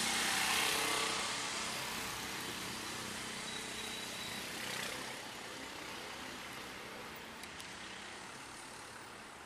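Street traffic heard from a moving electric bicycle: car engines running close by, under a steady rush of wind on the microphone that is loudest in the first second or two and eases off slowly.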